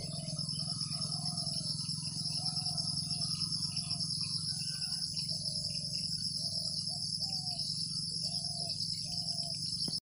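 Steady, high-pitched chorus of crickets trilling, with a bird repeating short, lower notes about once a second.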